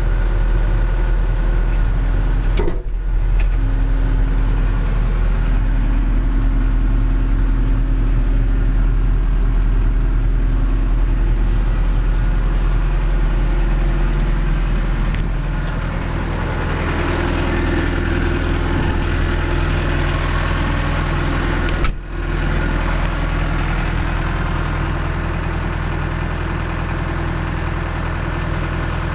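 John Deere 310G backhoe's four-cylinder diesel engine running steadily. Its note changes about halfway through. There are two brief drops in the sound, one near the start and one later.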